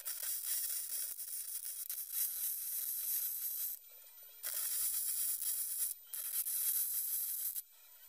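Electric arc welding on steel rebar and pipe in three runs: a steady hiss lasting about four seconds, then two of about a second and a half, each stopping sharply with a short break between.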